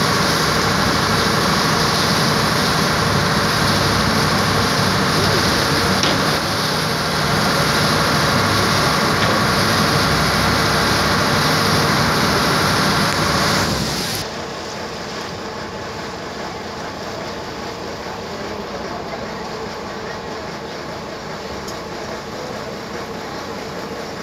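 Boat engine running steadily under a dense rush of wind and water. About halfway through the sound drops suddenly to a quieter, steady level.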